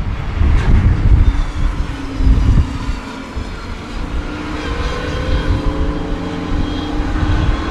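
Hansen GTR race car's 6.0-litre W12 engine running and accelerating, its pitch climbing steadily from about halfway through. Heavy wind buffeting on the microphone, loudest in the first few seconds.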